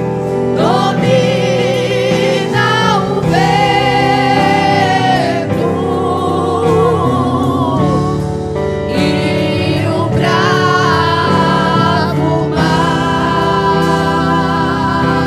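Women's vocal group singing a gospel praise song in harmony over instrumental accompaniment, holding long notes with vibrato.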